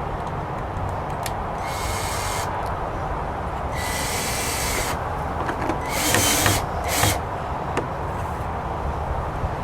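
Power drill driving screws to fasten a door handle to a resin storage shed, run in four short bursts of a second or less, the longest about a second and the loudest about six seconds in.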